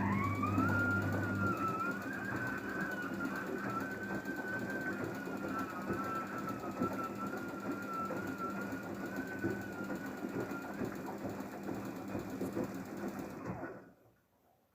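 Daewoo DWD-FT1013 washing machine turning its drum in the rinse cycle, with a high, wavering squeak that rises at the start and holds over the mechanical running noise, fading out about 11 seconds in. The machine's running noise stops about 14 seconds in.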